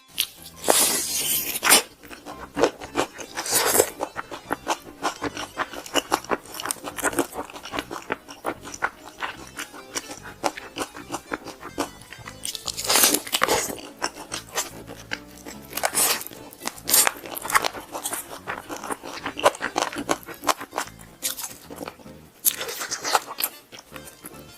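Crispy fried chicken crunching loudly with each bite and as it is chewed, in repeated bursts, over background music.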